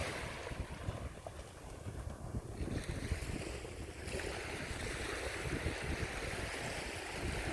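Wind buffeting the microphone over the hiss of small waves breaking on a sandy beach; the surf hiss swells about four seconds in.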